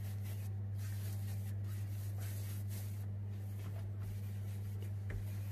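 A steady low electrical-sounding hum, with faint soft rubbing as hands roll a rope of tahini-filled yeast dough back and forth on the countertop.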